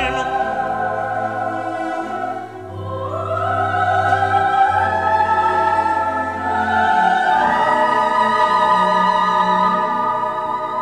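1950s orchestral ballad recording: an orchestra and choir hold long sustained chords. The melody climbs to higher notes about three seconds in and again about seven and a half seconds in.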